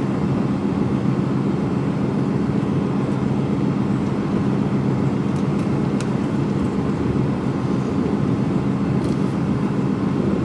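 Mercedes-Benz Actros lorry's diesel engine running steadily, heard from inside the cab while driving.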